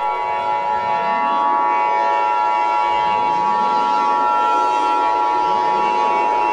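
Emergency Alert System two-tone attention signal: two steady high tones sounding together without a break. Underneath them a lower wailing tone rises over and over.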